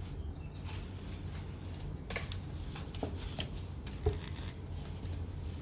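Faint handling noises: light taps and clicks of phone accessories and their packaging being picked up and handled, a few sharper taps around the middle, over a steady low hum.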